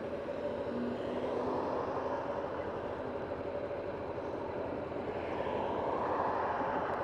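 Motorcycle engines idling steadily at a standstill, among them a Honda CBR500's parallel twin. Passing traffic swells twice, once about a second in and again near the end.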